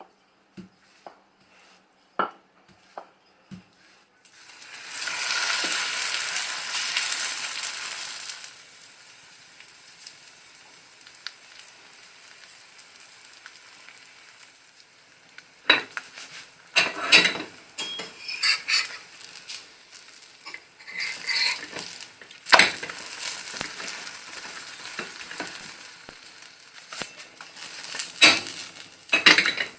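Green onion pancake pan-frying in oil: a loud sizzle starts about four seconds in and settles a few seconds later into a low steady sizzle. In the second half a spatula scrapes and knocks against the pan many times.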